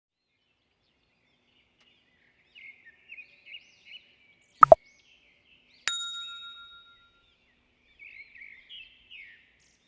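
Small bird chirping in two short runs, with a sharp double knock between them and then a single bell-like ding that rings out for about a second.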